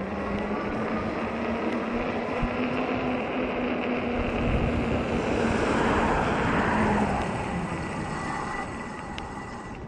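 Riding noise of a 48 V fat-tire e-bike: wind rushing over the microphone and tyres rolling on pavement, with a steady low hum that fades out about seven seconds in. The noise swells in the middle and eases off near the end.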